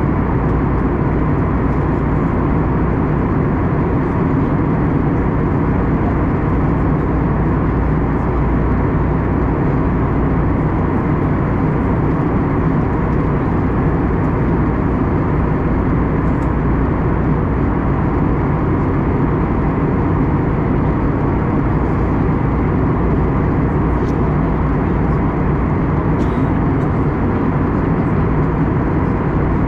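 Steady cabin noise inside an Airbus A321neo: a loud, even rush of engine and airflow noise with a low hum, holding constant with no change in pitch or level.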